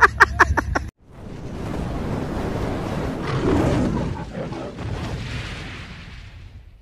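A rumbling, rushing whoosh that starts suddenly about a second in, swells and then fades out over about six seconds, typical of an edited intro transition sound effect.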